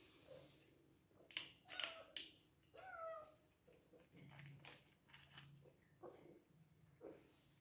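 Bengal kittens giving a few faint, short meows, hungry, amid scattered small clicks.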